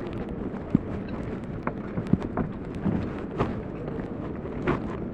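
Outdoor ship-breaking yard ambience: a steady wash of wind and distant yard noise, with scattered sharp knocks at irregular intervals.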